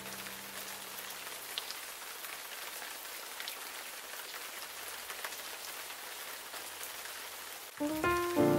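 Steady rain ambience: an even patter with scattered faint drips. A low note dies away in the first second or so, and background music notes come back in near the end.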